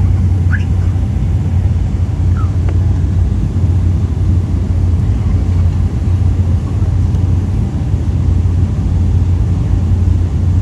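Steady cabin noise inside a Boeing 777-300 airliner on approach: an even, low drone of engines and airflow.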